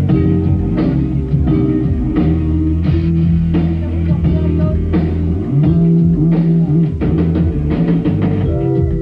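Rock music: a band playing, with a sustained bass line, guitar and drum kit hits.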